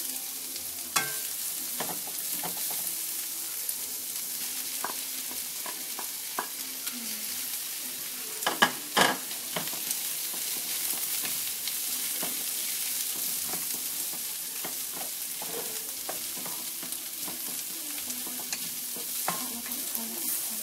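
Stir-fry sizzling steadily in a wok over a gas flame, with a wooden spatula knocking and scraping against the wok as the food is tossed. A few sharper knocks come about halfway through.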